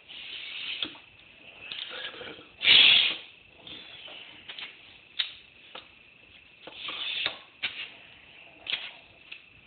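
Irregular rustling and brushing noises of hands and clothing moving close to a phone microphone: several short ones and a louder one about three seconds in, over a faint steady high whine.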